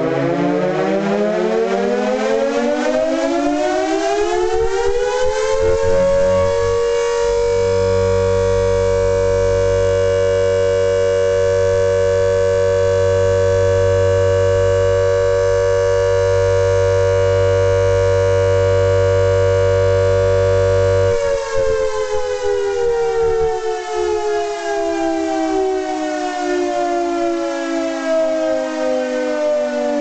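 Carter type 1H air raid siren, driven by a three-phase Brook Motors electric motor, winding up in a rising wail for about six seconds, then holding a steady full-speed tone with a low motor hum beneath. About two-thirds of the way through the hum stops and the wail slowly falls in pitch as it winds down. It runs through the full-speed test without fault.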